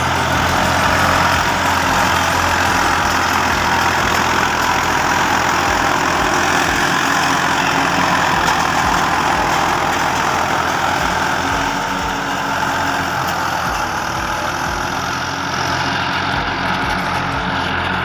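Swaraj 963 FE 4×4 tractor's diesel engine running steadily under load as it pulls an 8-foot Landforce super seeder working the soil.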